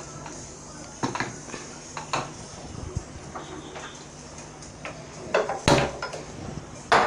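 Metal cookware knocking and clanking as it is handled and set down: a few scattered knocks, the loudest clanks near the end.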